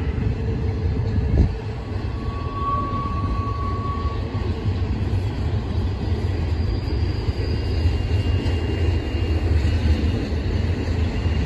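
Double-stack container well cars of a freight train rolling by, a steady low rumble of wheels on rail. A single thump comes about a second and a half in, and a faint high squeal rings for a couple of seconds just after.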